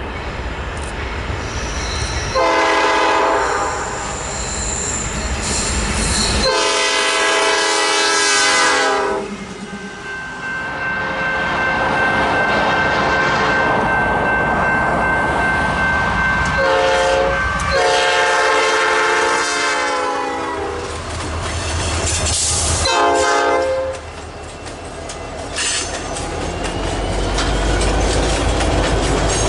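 Nathan Airchime P5 five-chime locomotive horn sounding a series of chord blasts, some short and some long, over the rumble and rail clatter of passing trains. A steady high squeal runs between the blasts.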